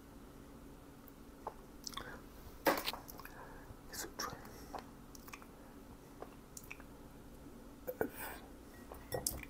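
Eggs being cracked and separated by hand over a glass bowl: faint, scattered clicks of shell and soft wet sounds, the sharpest click about three seconds in.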